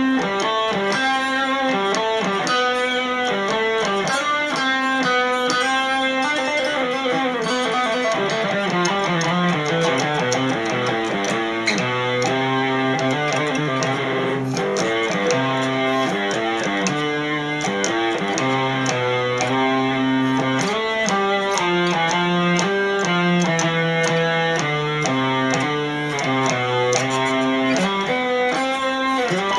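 Solo guitar played by hand: a melody of single plucked notes moving over lower bass notes, going on steadily without a break.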